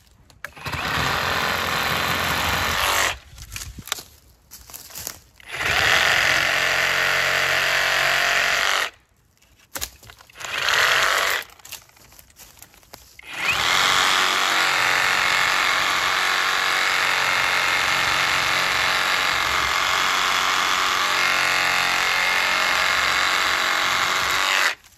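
Hercules 20V brushless cordless reciprocating saw with a 12-inch carbide-tipped pruning blade, cutting through tree limbs. It stops and starts in four short runs, then runs without a break for about eleven seconds and cuts off suddenly near the end.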